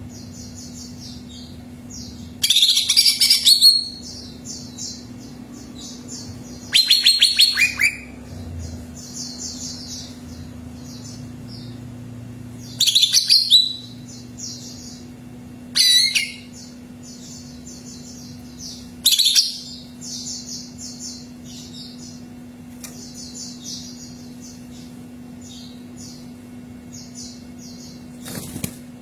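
Green leafbird (cucak ijo) singing. Loud, high song phrases come every few seconds, with quieter rapid chattering between them, over a steady low hum.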